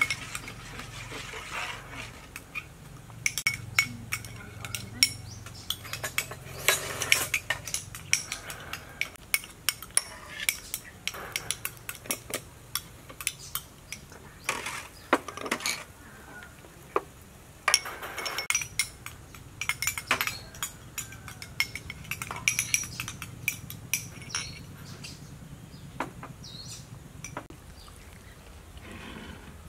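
Metal ladle clinking and scraping against small ceramic bowls as egg mixture is spooned into them, with irregular taps throughout.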